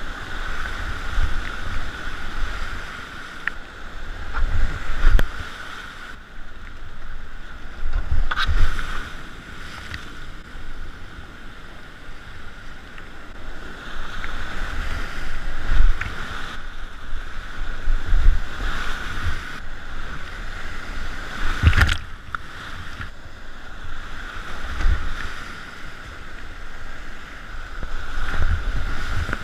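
Whitewater rapids rushing steadily while a kayak runs the river, with uneven low rumbling of water and wind buffeting the microphone. A few sharp knocks stand out, the loudest about 22 seconds in.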